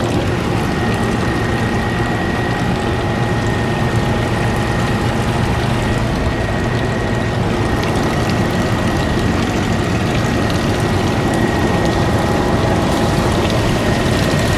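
Evaporative (swamp) cooler running steadily: belt-driven blower and water pump going with water trickling, a low hum and a thin steady high whine through it. Its bearings are freshly greased and no knocking or rattle is heard.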